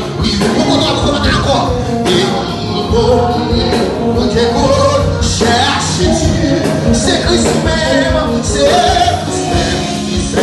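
Live gospel worship music: a man singing into a microphone over amplified keyboard and band accompaniment.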